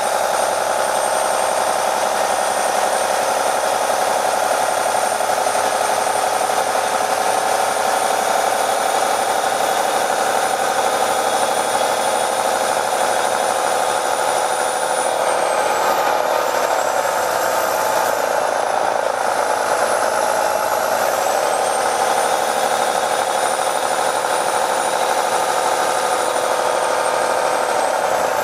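An MCI D4500 coach's Detroit Diesel Series 60 engine running with a steady drone, heard from inside the bus. The recording is processed to cancel passengers' talk, so it sounds odd.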